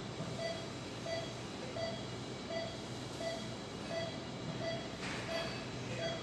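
Pulse oximeter on an operating-room patient monitor beeping in time with the patient's heartbeat, one short tone about every 0.7 s, over steady low background noise. A brief hiss comes about five seconds in.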